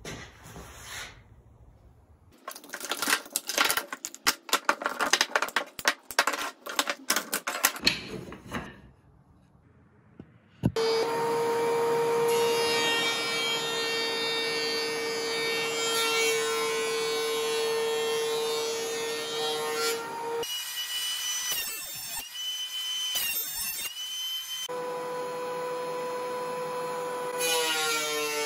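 First a run of sharp clicks and knocks, then a benchtop thickness planer starts up suddenly and runs with a steady motor whine. Its sound shifts for a few seconds about two-thirds of the way through, then settles back to the steady whine.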